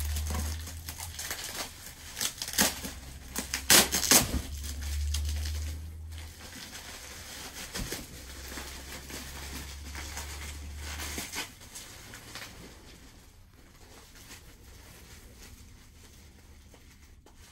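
Packaging wrap being torn and crumpled by hand while a heavily wrapped parcel is opened: irregular crinkling and rustling with a few sharp loud crackles in the first few seconds, growing quieter after about twelve seconds, over a low hum for most of the first two-thirds.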